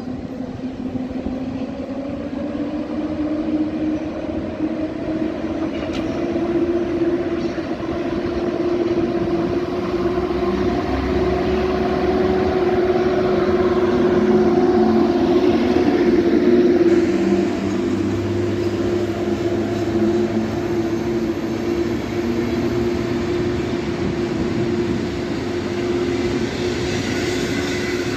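Electric locomotive hauling passenger coaches rolls past along a station platform: a steady hum with a higher tone above it, growing louder to a peak about halfway through as the locomotive goes by, then easing a little as the coaches roll past.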